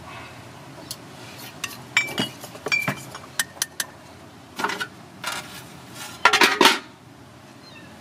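Metal fork clinking and scraping against a ceramic plate, stirring sweet soy sauce into peanut sauce: scattered light clinks, then a few short scrapes, with the loudest scraping run near the end.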